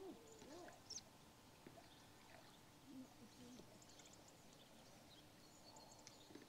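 Near silence: faint outdoor ambience with a few scattered bird chirps.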